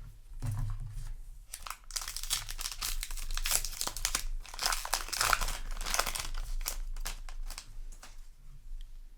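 Foil booster-pack wrapper for Yu-Gi-Oh! cards crinkling and crackling as it is handled, with some tearing. It is loudest through the middle few seconds and dies down near the end.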